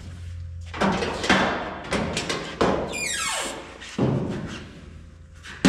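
A homemade leaf-spring slapper striking the steel cowl of a Model A Roadster over a dolly held underneath. It lands about six blows, each ringing off briefly, working the flat area up to fit the windshield frame. A brief falling swoosh passes about halfway through.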